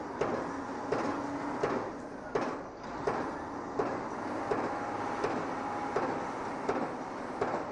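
Regular mechanical knocking, about three knocks every two seconds, over a steady machinery rumble from a construction site.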